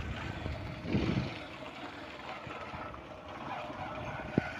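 Motorcycle engine running steadily and fairly quietly while riding, with a short rumble about a second in and a single sharp click near the end.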